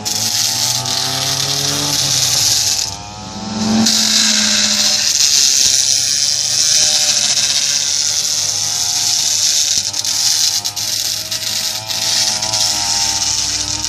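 Kazumi SUM 328 two-stroke brush cutter running at high revs, its blade grinding and scraping on concrete and throwing sparks. The engine note wavers as the cutter is swung and dips briefly about three seconds in.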